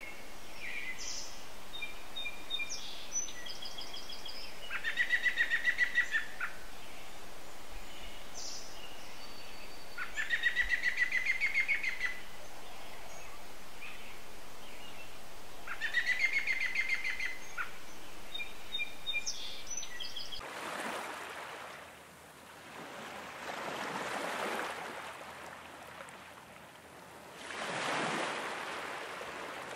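A songbird sings three fast trilled phrases a few seconds apart, with short chirps between them, over a steady outdoor hiss. About two-thirds of the way through the birdsong stops and slow washes of noise take over, swelling and fading twice.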